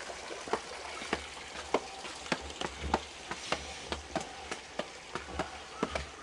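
Footsteps of shoes climbing stone steps: an even tread of scuffs and taps, a little under two steps a second, over a steady hiss.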